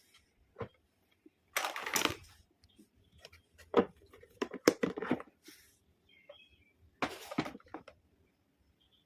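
Plastic toy doctor-set pieces and packaging being handled: a couple of short rustles, and a run of sharp clicks and taps in the middle.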